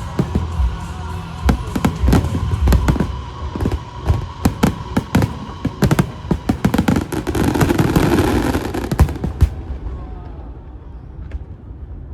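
Aerial fireworks bursting in rapid succession, many sharp bangs overlapping, then cutting off about nine and a half seconds in.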